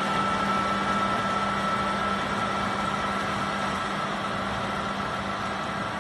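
Tractor running steadily while pulling a multi-row rotary tiller through soil: an even mechanical hum with a noisy wash over it, slowly getting a little quieter.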